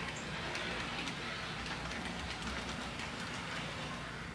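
HO scale model train running on sectional track, its wheels rolling with a steady rush and many small clicks over the rail joints, easing off slightly near the end as it moves away.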